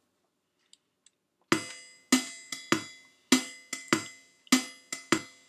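Yamaha PortaSound PSS-470 keyboard's built-in drum rhythm starting after about a second and a half of near silence: electronic percussion hits about every 0.6 s with lighter hits between, in a shuffling pattern.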